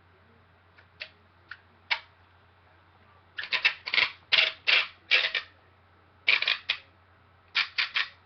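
Hard plastic Nerf blaster parts knocking and clicking against each other as one part is fitted onto another. There are a few single clicks at first, then from about three seconds in a run of quick knocks in clusters.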